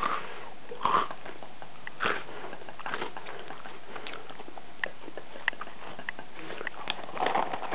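Close-up chewing of a mouthful of Froot Loops cereal with the mouth open. At first the cereal crunches in bursts about once a second, then there are smaller wet mouth clicks.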